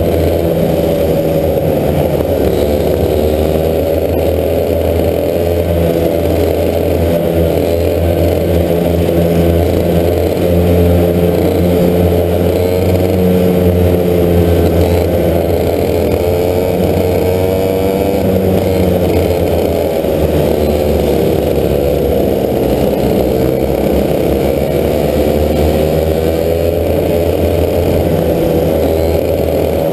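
Racing kart engines running hard in a close pack, heard from on board one kart, their pitch rising and falling as the karts brake and accelerate through the corners.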